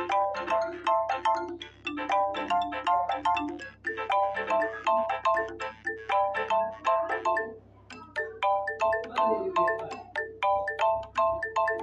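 Smartphone incoming-call ringtone: a short melody of quick, fast-fading notes repeating about every two seconds. After a brief pause about eight seconds in, a different ringtone melody starts.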